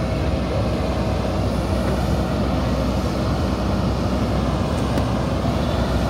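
JCB 3DX backhoe loader's diesel engine running steadily under load while the backhoe arm works the bucket.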